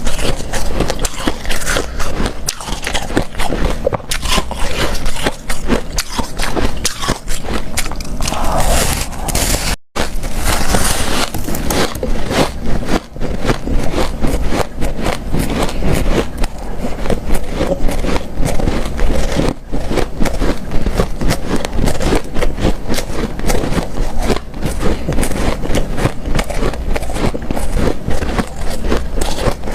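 Chewing and crunching of powdery, snow-like freezer ice: dense crackling bites and scrapes throughout, broken once by a brief silent gap about ten seconds in.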